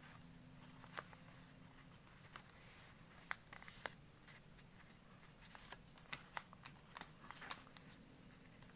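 Faint handling of a sheet of origami paper as a folded flap is opened out and pressed flat by hand: soft rustling with scattered crisp ticks, thickest in the second half.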